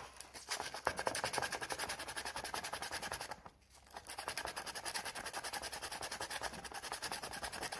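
Sandpaper rubbed by hand in quick back-and-forth strokes over a welded plastic seam, several strokes a second, to take off the burrs left by the welding. The strokes stop briefly about three and a half seconds in, then resume.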